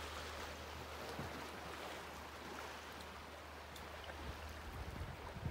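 Sea water washing gently against shoreline rocks, a steady rushing hiss with a low rumble underneath and a few soft thumps near the end.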